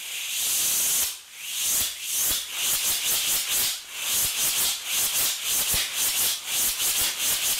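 Sugar-and-saltpeter rocket motor with a 3D-printed grain burning: a loud hiss that flares at ignition, dips a little after a second, then chuffs in rapid surges, about three a second, so that it sounds like a pulse jet.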